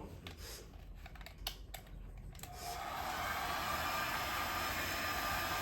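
A few light clicks, then a hair dryer switches on about two and a half seconds in and runs steadily on its low, no-heat setting.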